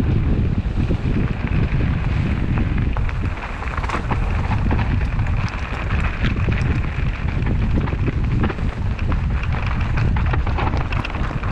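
Wind buffeting the microphone of a hardtail mountain bike rolling downhill over gravel and dirt trail. Frequent short clicks and rattles from the bike and tyres pick up about a third of the way in, as the path turns into rough, stony singletrack.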